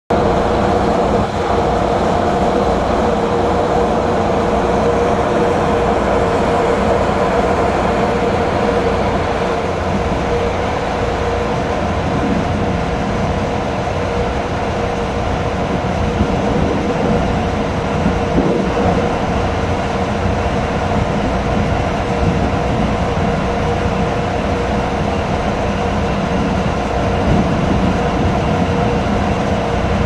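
Steady mechanical drone of a ship under way, a low rumble with a constant hum in it from the vessel's engines and machinery.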